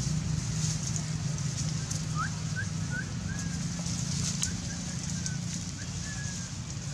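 A small bird chirps faintly, about eight short rising notes spread over a few seconds from about two seconds in, over a steady low hum and a high hiss of outdoor background.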